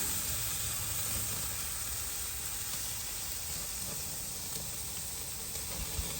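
Steaks sizzling on a grill: a steady hiss that eases a little over the few seconds.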